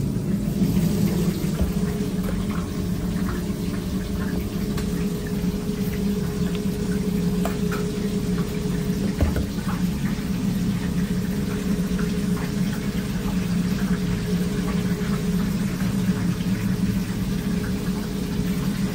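Steady low hum of commercial kitchen equipment such as an extractor hood or refrigeration fan, with a faint steady tone above it. Light scattered clicks and taps come from handling sauce bottles and laying burger fillings on the counter.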